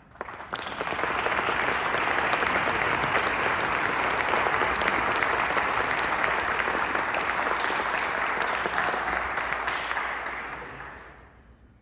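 Audience applauding, the clapping swelling in within the first second and dying away near the end.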